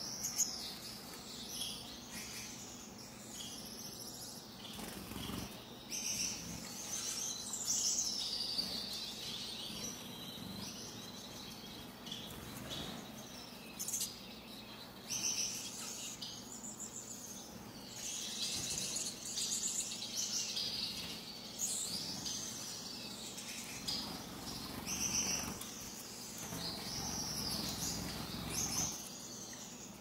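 A flock of Gouldian finches calling in a cage: many short, high chirps that overlap and come in bursts.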